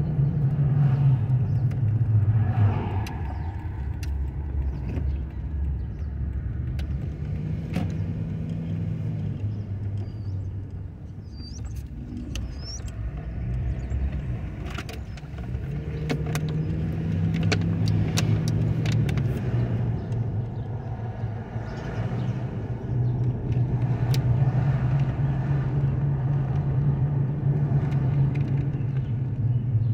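Car engine and road noise heard from inside the cabin while driving, the engine note rising and falling several times as the car speeds up and slows.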